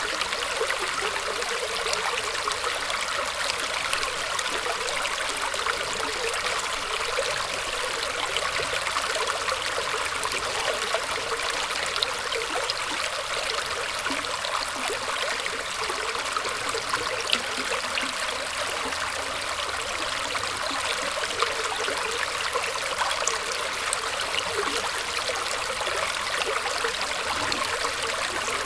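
Small stream of water trickling and burbling steadily over and around tree roots, with light splashes.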